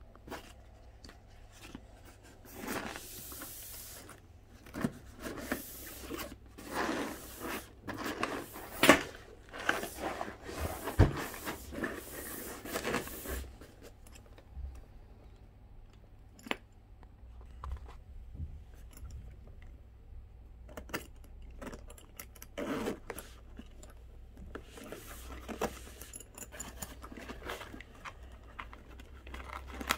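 Packaging and parts of a cordless drill kit being handled during unboxing: rustling, scraping and tearing with sharp clicks and light knocks. The sounds come in two busy stretches with a quieter spell of scattered clicks between them.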